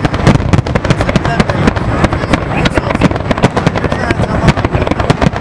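Fireworks display at full barrage: many shells bursting at once in a dense, unbroken run of overlapping bangs and sharp cracks.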